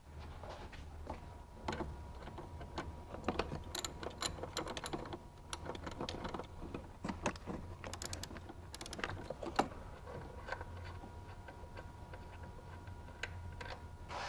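Socket ratchet clicking in short irregular runs, with light metal clinks, as the 6 mm hex bolts of a chassis cross brace are loosened.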